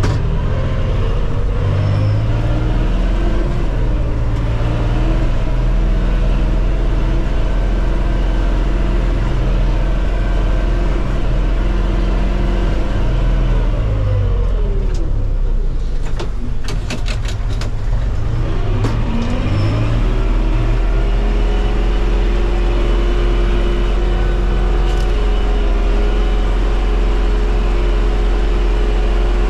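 Valmet tractor's diesel engine running steadily, heard from inside the cab. About halfway through the revs drop away for a few seconds, with a quick run of clicks, then climb back up and hold.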